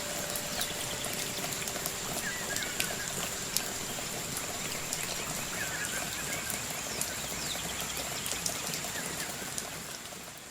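Steady rain pattering with many small drips, and a few short bird chirps now and then.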